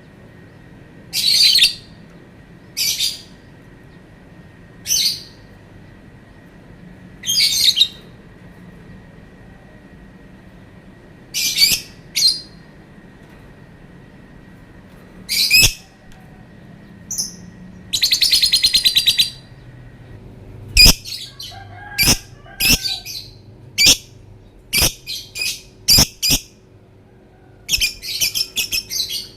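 Lovebird calling in shrill, high chirps. The chirps come singly a few seconds apart at first, then a rapid chattering trill lasts about a second and a half, and a quicker run of sharp calls follows near the end.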